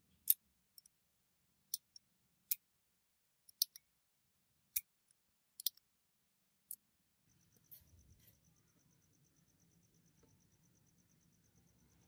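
Sharp metallic clicks and snaps of a restored handmade 12-gauge break-action gun being worked by hand: the barrel breaking open and snapping shut and the hammer cocking, about a dozen separate clicks over some seven seconds. After that the clicks stop and only a faint low rumble with a steady pulsing high tone is left.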